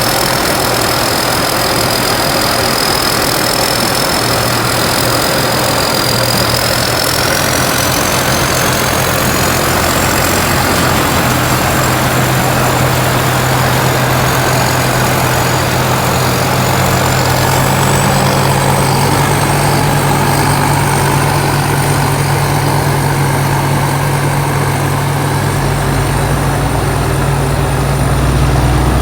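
Combine harvester's engine running loud and steady, with a thin high whine above it that climbs in pitch in two steps, about a quarter of the way in and again past halfway. A deeper engine note joins near the end.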